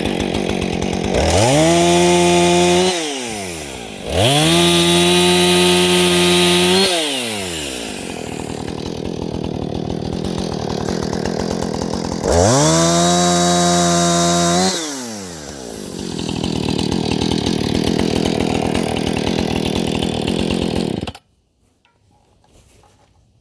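Husqvarna 455 Rancher 55cc two-stroke chainsaw idling and revved to full throttle three times, each burst held for two or three seconds before dropping back to idle. The engine sound cuts off suddenly near the end.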